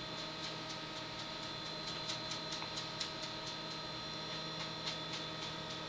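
Faint, quick soft ticks of a damp face-paint sponge dabbing brown paint onto the cheek and jaw, about three or four a second, over a steady hum.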